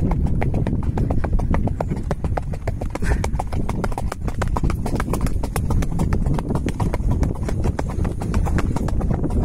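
A horse walking on a dirt track, its hooves clip-clopping in a steady, even rhythm.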